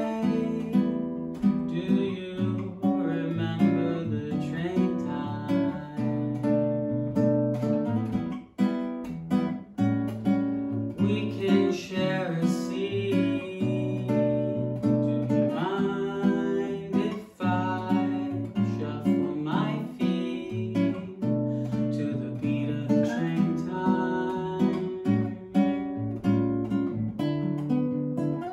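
Nylon-string classical guitar played in a bossa nova style: plucked chords over a steady bass line.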